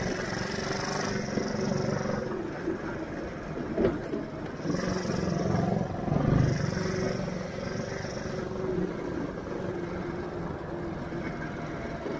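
Go-kart engine running steadily while the kart is driven along the road, its pitch wavering a little with the throttle.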